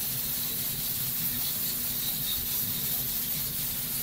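Water steadily sizzling and hissing in a hot karahi of frying chicken keema just after water is added, with a faint steady low hum underneath.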